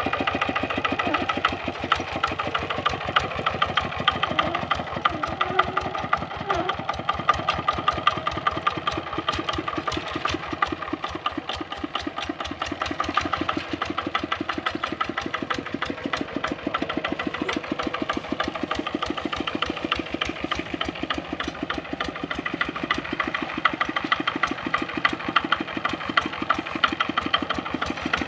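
Kubota RD65 single-cylinder diesel engine of a hand tractor running steadily with a fast, even beat.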